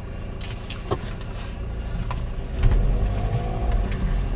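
Car engine and road rumble heard from inside the moving car, with a few light clicks. About two and a half seconds in the car speeds up and the low rumble grows louder.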